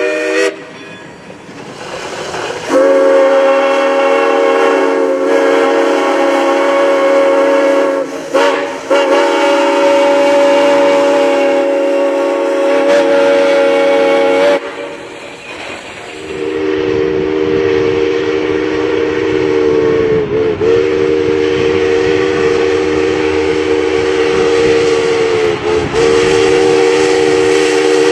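Train horn sounding two long, held multi-note blasts with a short break between them, the second a little lower in pitch.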